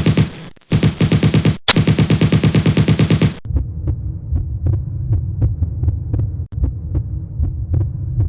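Sound-effect track: a fast, even stutter of pulses, about ten a second, broken twice briefly, then, about three and a half seconds in, a low throbbing hum with faint ticks.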